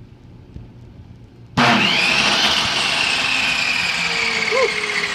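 Ryobi 10-inch table saw switched on about a second and a half in: the motor starts suddenly and runs with a high whine. The saw starting up shows the cleaned, re-greased power switch now works.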